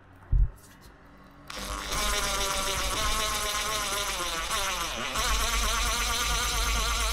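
Power drill driving a self-drilling screw through the roof fan's plastic flange into the van's roof metal, starting about a second and a half in after a short knock. Its whine sags in pitch around five seconds in as the screw loads up, then picks up again and stops near the end.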